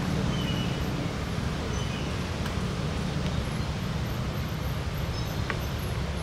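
Steady low background hum with a few faint, brief high chirps.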